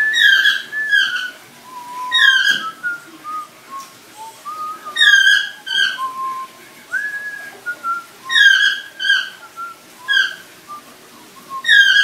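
African grey parrot whistling a repeated phrase of two or three short, swooping notes, each starting with a sharp click, with quieter lower whistled notes in between.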